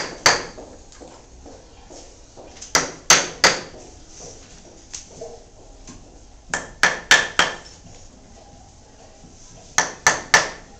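Wooden mallet striking a carving chisel into a block of wood: sharp knocks in quick groups of two to four, coming about every three seconds.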